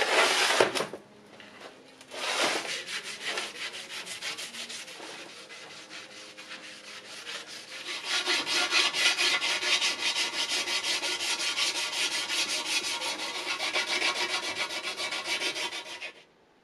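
An abrasive scouring pad rubbed by hand in quick back-and-forth strokes over a metal band saw part, scrubbing it clean. The scrubbing grows louder and steadier about halfway through and stops shortly before the end.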